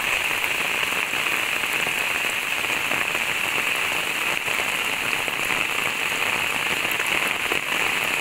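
Steady, even rush of water in heavy wet weather, with faint scattered taps of drops.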